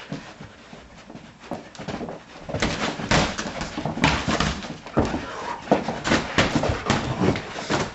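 Boxing gloves landing in a fast, irregular flurry of punches. The thuds grow thick and loud from about two and a half seconds in.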